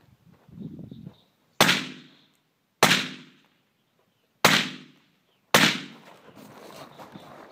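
Four rifle shots fired at an uneven pace, a bit over a second apart, each loud crack trailing off in a short echo.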